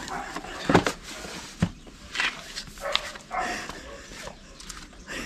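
Dogs shut indoors barking and whining, trying to get out. Two sharp knocks come in the first two seconds and are the loudest sounds.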